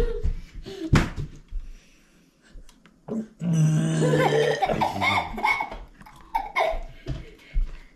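A child laughing and a man's long, low vocal sound about three and a half seconds in, followed by more voices. A sharp click comes about a second in.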